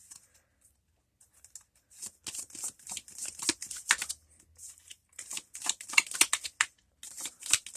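A tarot deck being shuffled by hand: a quick run of crisp card flicks and slaps, starting about a second in and coming in a few bursts.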